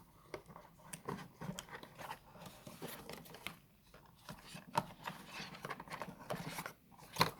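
Cardboard phone-box packaging and paper leaflets being handled: a run of rustles and small clicks, with one sharp click near the end.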